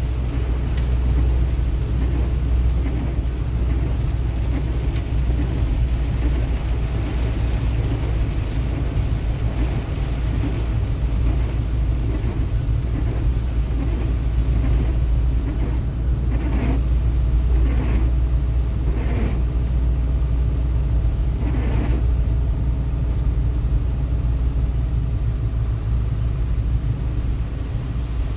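Steady low engine and road rumble inside a vehicle's cab, driving on a rain-wet highway. Four short, higher sounds come in a row a little past the middle.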